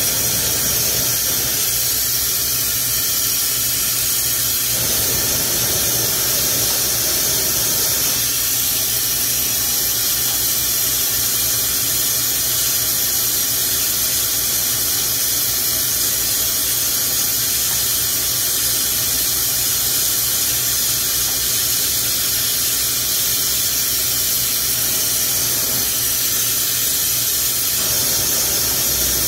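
Lampworking bench torch burning, a steady hiss of its flame.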